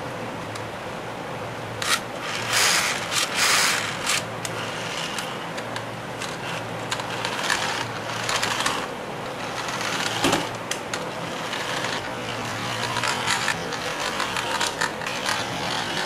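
Toy RC car's small electric motor whirring steadily, with its plastic wheels and body clattering and scraping on a plastic sheet in bursts, loudest about two to four seconds in and again around eight seconds.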